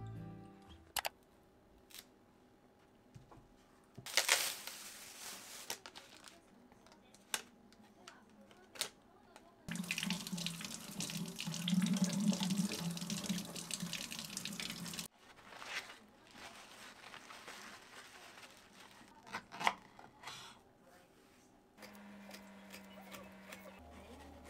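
Kitchen water tap running into a sink for about five seconds in the middle, with scattered clicks and knocks of kitchen work before and after.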